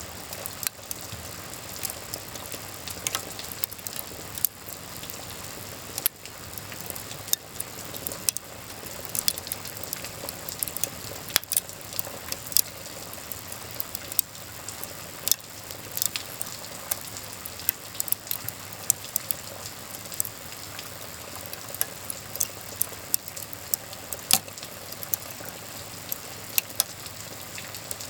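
Wood fire crackling, with frequent sharp, irregular pops over a steady hiss of rain.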